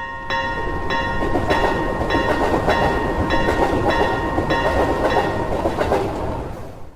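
A train running past with a rumble, while a level-crossing warning bell clangs steadily a little under twice a second. It all fades out near the end.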